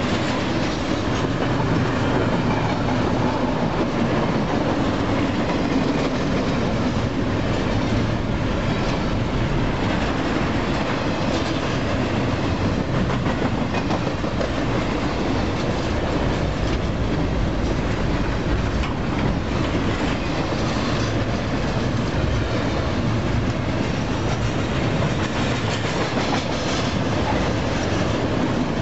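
Double-stack container cars of a freight train rolling steadily past close by: a continuous rumble of wheels on rail with scattered clicks.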